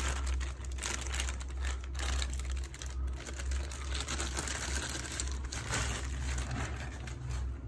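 Thin clear plastic bag crinkling and rustling as it is handled and pulled off a modem, in irregular crackles, over a steady low hum.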